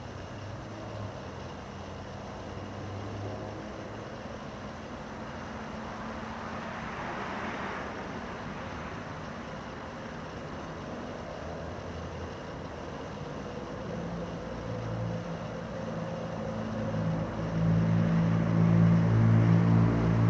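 A low, steady engine hum that grows clearly louder in the last few seconds, with a brief swell of rushing noise about seven seconds in.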